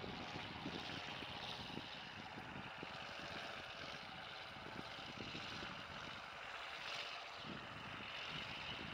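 Heavy truck's diesel engine running with a steady drone, mixed with wind buffeting the microphone.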